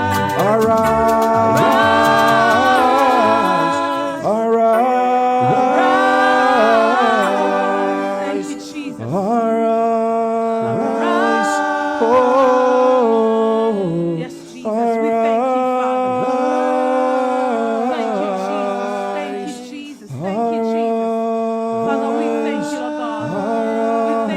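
Worship singing: voices hold slow, long notes in phrases of about five seconds, with short breaks between the phrases.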